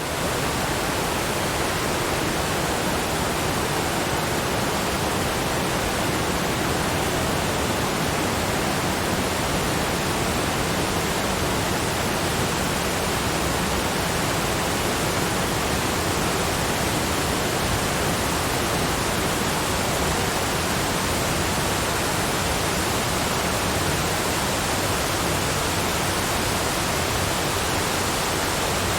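Waterfall white noise: the steady, even rush of falling water, unchanging throughout.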